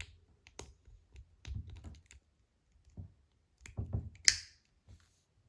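Small plastic and rubber parts of a Source Tactical Storm hydration valve being handled and fitted together: scattered light clicks, taps and soft knocks, with a cluster of them and one louder, brief scraping sound a little past four seconds in.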